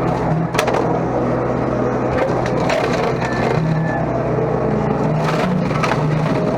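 Mini excavator engine running steadily while its home-built slasher attachment chops through woody brush, with several sharp cracks and snaps of stems splintering through the cut.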